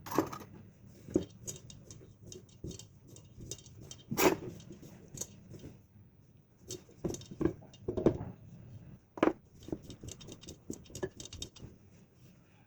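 Irregular soft pats, taps and knocks of hands working raw chicken pieces in a dry flour coating, with a few louder knocks among them.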